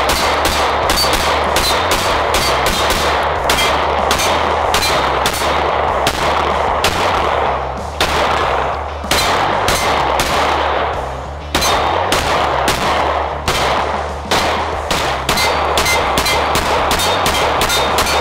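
Rapid strings of pistol shots from an FN 509 MRD, a striker-fired 9mm handgun, several shots a second. The strings break off briefly a few times.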